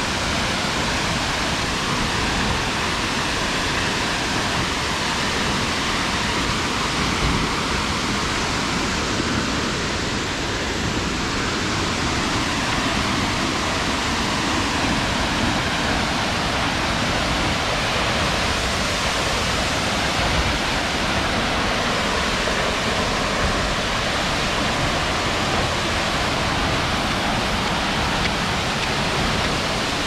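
Ramboda Falls, a 109 m waterfall, pouring down with a steady, even rush of falling water.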